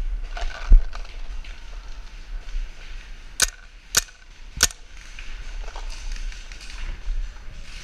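Paintball marker firing three quick shots about half a second apart, sharp pops. A low thump of handling comes just before, near the start.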